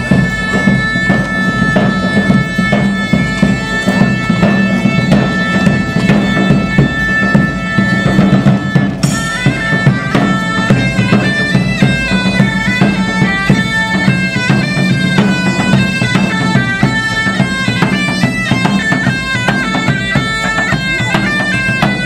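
Medieval-style bagpipes playing over their steady drone: one long held high note for about the first nine seconds, then a running melody from about nine seconds in.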